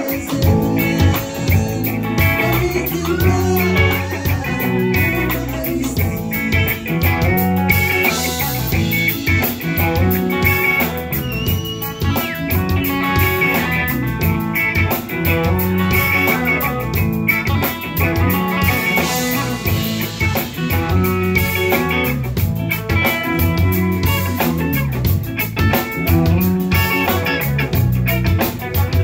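Live Tuareg desert-blues band playing: interlocking electric guitar lines over a steady drum-kit beat.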